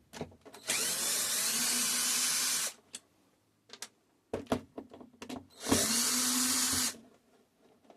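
Power screwdriver running twice, about two seconds and then just over a second, backing screws out of a TV's plastic back cover, with small clicks of screws and plastic being handled between the runs.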